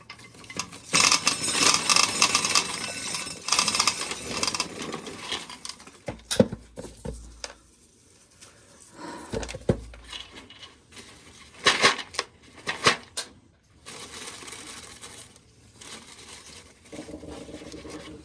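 Dried corn being shelled off the cob: kernels scraping off and rattling for several seconds, then quieter rustling broken by a few sharp knocks.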